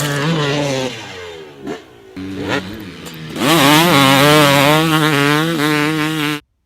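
Motorcycle engine revving, its pitch rising and falling in repeated blips. It gets louder about three and a half seconds in and cuts off abruptly near the end.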